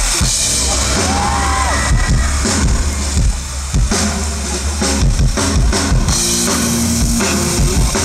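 Live rock band playing the opening of a song, with drum kit and bass to the fore, recorded loud from within the audience.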